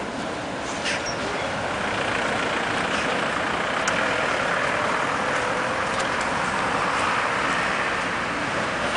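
Street traffic: a tram rolling along street track toward the listener while a van drives past. The noise is steady and grows a little louder after the first couple of seconds.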